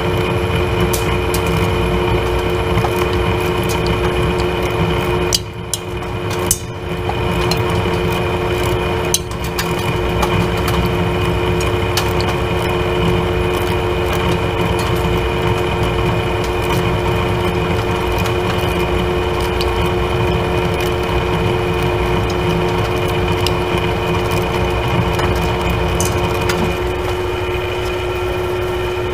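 Monarch engine lathe running under load as a carbide tool takes a dry turning pass on a 1018 steel sleeve: a steady machine hum with several constant whine tones and scattered faint ticks. The sound dips briefly a few times around six to nine seconds in. The chips are coming off blue, a sign that the cut's heat is going into the chip.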